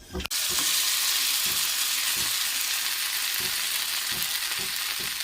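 Marinated chicken leg piece frying in hot oil: a steady sizzle that starts suddenly about a quarter second in, with a few soft knocks.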